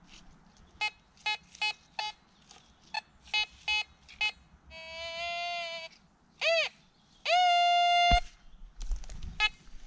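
Fisher F22 metal detector giving target tones: a quick run of short beeps, a wavering tone, a rising-and-falling chirp, then a steady tone held for about a second, with a few more short beeps near the end.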